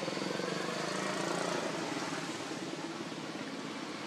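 An engine running steadily, with a fast, even pulsing hum.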